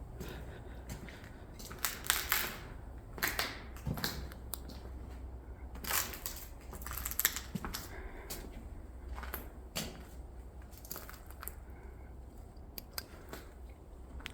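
Footsteps crunching over debris on a floor, irregular crunches about a second apart, over a steady low rumble.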